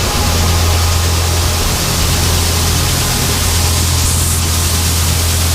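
Grain dryer's fan and burner running: a steady low hum under a loud, even rushing hiss.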